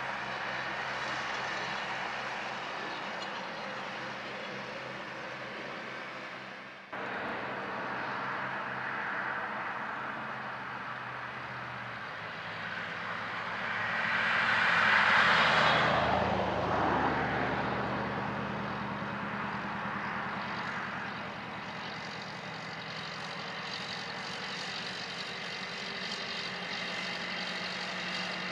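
Tractor engine running steadily as it mows. After a cut, a backhoe loader's engine runs, and about halfway through a passing vehicle swells loud and fades, its pitch dropping as it goes by.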